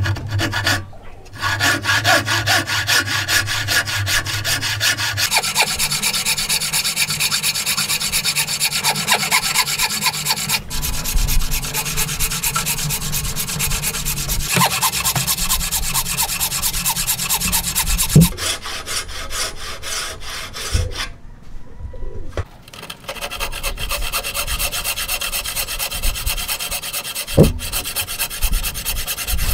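Hand sawing with a narrow-bladed wooden frame saw, the blade rasping back and forth in quick strokes as it cuts kerfs into the end of a wooden block. The sawing goes on in several stretches, with one short pause a little over two thirds of the way through.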